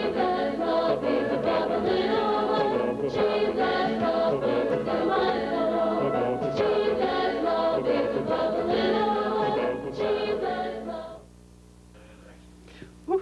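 A choir singing a Christian song, which stops about eleven seconds in, leaving only a faint low steady hum.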